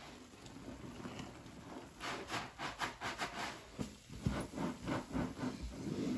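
Blue cleaning liquid poured in a thin stream into a sink of suds, then an epoxy sponge squeezed over and over in the soapy water by rubber-gloved hands: a quick run of wet squelches and sloshing.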